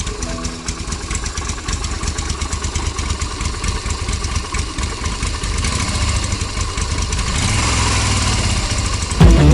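Yamaha SRV250's air-cooled V-twin engine running at idle, growing louder in the second half. Music comes in abruptly just before the end.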